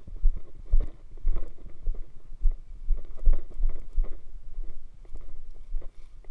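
Footsteps through dry fallen leaves: irregular thumps with leaf rustling, about two a second.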